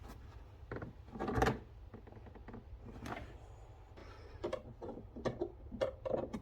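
Blow-moulded plastic typewriter case being worked open, its latch tabs prised with a knife: scattered clicks, scrapes and knocks of plastic. The loudest is a short scrape about a second and a half in, and a run of small clicks comes near the end.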